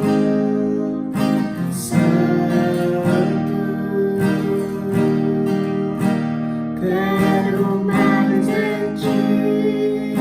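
Acoustic guitar strumming chords in a steady rhythm, the chords ringing on between strokes.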